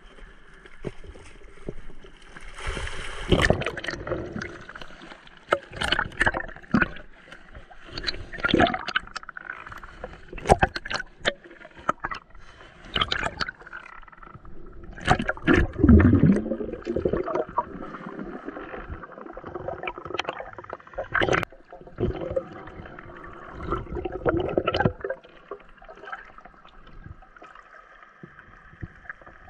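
Water gurgling and sloshing around a camera held just under the sea surface, with a rush of water about three seconds in and irregular knocks and thumps throughout, the heaviest around the middle; faint steady tones run underneath.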